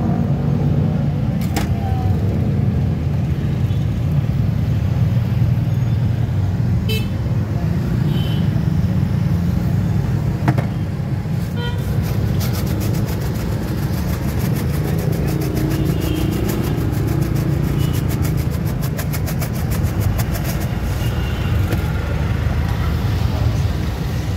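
Steady rumble of road traffic with a few car or motorbike horn toots. From about halfway through, a rapid rattle runs for several seconds as a container of chocolate sprinkles is shaken over a crepe on the hotplate.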